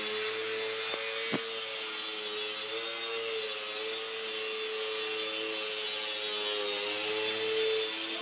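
Electric motor and propeller of a micro UMX Extra 300 RC plane running steadily as it hovers nose-up, a buzzing hum whose pitch wavers slightly, with a light tick just over a second in.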